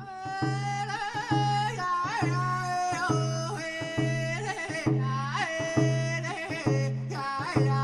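Background music: a melody with sliding, bending notes over a steady low drone, with regular drum strokes.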